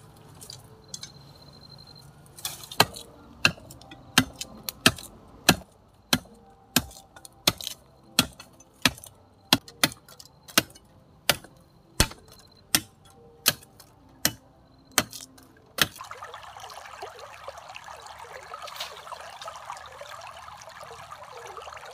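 Sharp knocks of a hand tool striking, about one and a half a second, for some thirteen seconds. Then they stop and water runs or pours steadily for the last six seconds.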